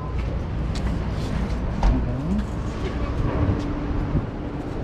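City street traffic: a steady low rumble of passing and idling vehicles, with a held engine hum in the second half and a few short clicks.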